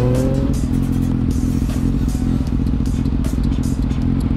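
Kawasaki Z750's inline-four engine revving up briefly, then about half a second in settling into a steady, even running note as the bike slows.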